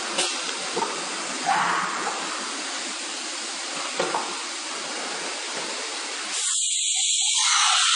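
CNC router machine running, a steady hiss with a few sharp clicks. About six seconds in the sound changes suddenly to a louder, thinner high hiss.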